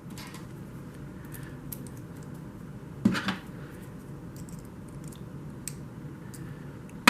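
Faint metallic clicks of a lock pick and tension wrench working inside a vintage Master Lock padlock, scattered and sparse, with one louder rattle of handling about three seconds in.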